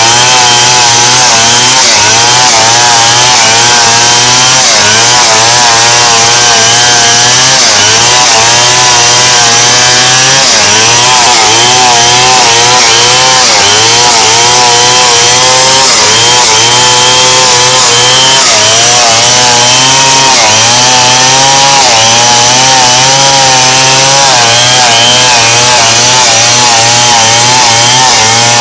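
Stihl two-stroke chainsaw at full throttle, ripping lengthwise along a log. It runs loud and without a break, its engine pitch wavering up and down as the chain bites into the cut and eases off.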